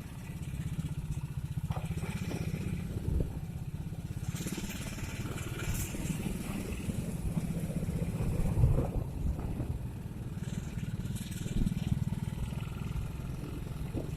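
A vehicle engine running steadily on the move, its low engine note continuous throughout, with a couple of louder swells.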